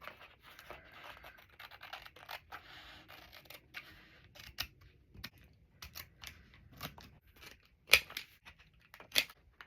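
Scissors snipping paper, trimming the edges of magazine cut-outs: a run of short, irregular snips, with a couple of louder ones near the end.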